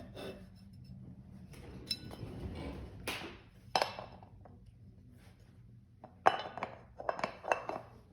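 Metal clinks and knocks from the two halves of a split scooter wheel rim being fitted together around a new inner tube. There are a few single clinks, then a quick run of them near the end.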